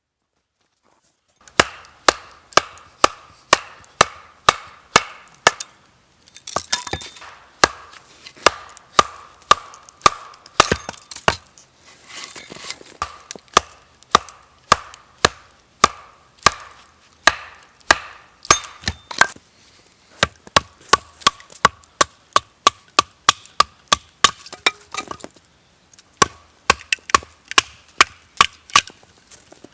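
Wood being chopped with quick, sharp blows, about two a second, starting about a second and a half in, with a few short breaks.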